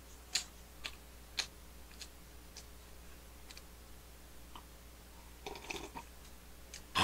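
Faint clicks, about one every half second in the first two seconds and a few softer ones after, then a short cluster of small sounds near six seconds, as a man sips cola from a glass through a straw.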